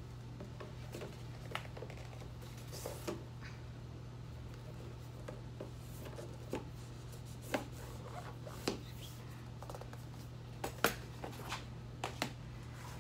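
Cardboard and paper items of a boxed set being handled: scattered soft clicks, taps and brief rustles, a few sharper ones near the end, over a steady low hum.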